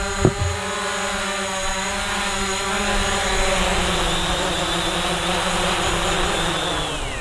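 Hubsan Zino quadcopter's propellers whining steadily as it descends and sets down on a landing pad, with a rushing noise growing as it settles. The pitch falls just before the end as the motors spin down after landing.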